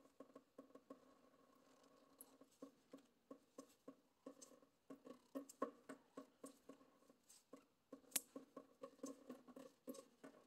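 Faint, irregular squeaks and clicks from a plastic fuel filter bowl and its retaining ring being twisted by hand on a compact diesel tractor, the threads creaking as they turn.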